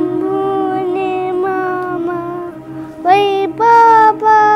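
A young girl singing long held notes over a steady low drone; about three seconds in her line jumps higher and louder.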